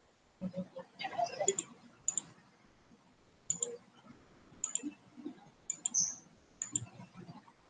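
A computer mouse clicking about six times at uneven intervals, each click a quick pair of snaps from press and release.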